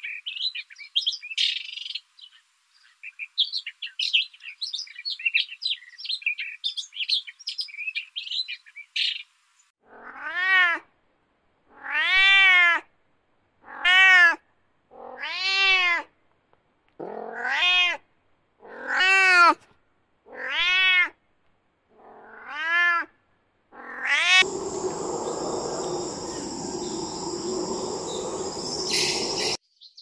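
A small bird chirping rapidly for the first nine seconds or so, then a kitten meowing about nine times, each meow about a second long and rising then falling in pitch. For the last five seconds or so a steady hiss with a high tone takes over.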